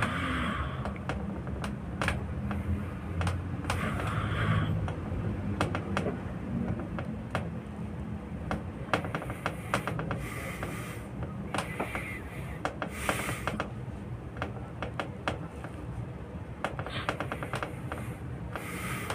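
Back massage: hands tapping and patting on a person's back in quick, irregular clicks, over a low rumble, with a breath heard every few seconds.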